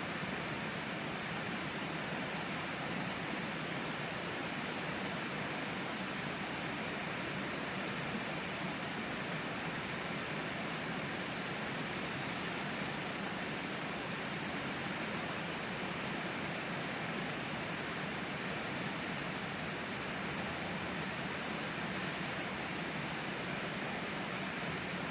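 Steady rushing of the Tama River flowing right beside the campsite, an even noise-like hiss, with a steady high-pitched tone above it.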